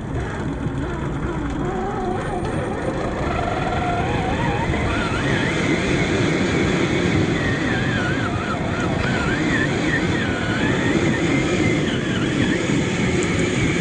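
Radio-controlled Jeep Cherokee model driving over rough ground: its drivetrain whines, rising and falling in pitch with the throttle, over a continuous rumble of wheels and chassis on the uneven surface.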